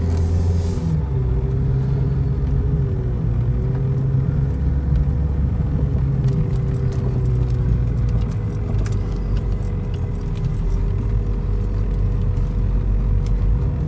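Mercedes-Benz car heard from inside the cabin while driving slowly: a steady low engine and road hum, with a few faint light clicks and rattles about halfway through.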